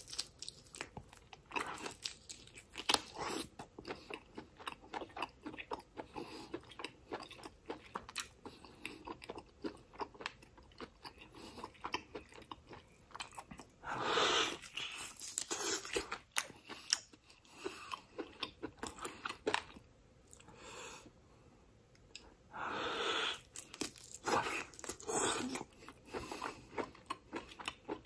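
Close-miked biting and chewing of marinated Korean short ribs, eaten off the bone by hand: a steady run of irregular mouth clicks, with a louder, denser stretch around the middle as a fresh bite is taken and another a little later.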